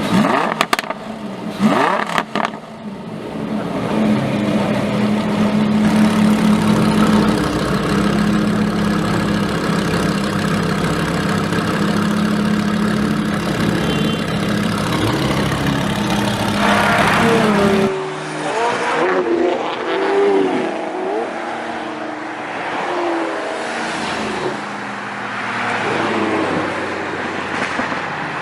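Lamborghini Huracán's V10 through an Akrapovic exhaust: sharp cracks and a quick rising rev in the first couple of seconds, then the engine runs at a steady held pitch for about fifteen seconds. After a cut about eighteen seconds in, it is quieter and uneven, with voices over it, and a rev rises near the end.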